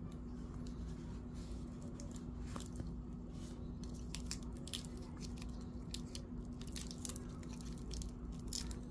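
Stainless steel watch bracelet being handled and flexed, giving many small irregular clicks and crackles from its links. A steady low hum runs underneath.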